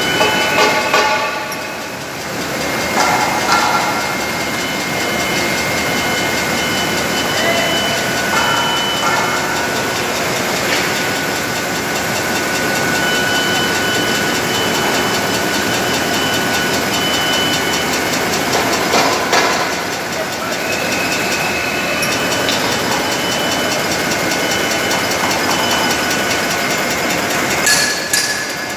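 Polystar RH wicketer (plastic bag-making machine) running: steady mechanical running noise with high whining tones that come and go.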